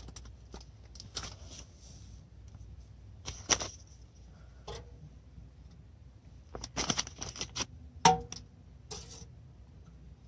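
Irregular knocks and clatter of thin wooden kindling sticks being handled and laid into a small steel wood stove. The knocks come one at a time, with a quick cluster about seven seconds in and the sharpest knock just after that.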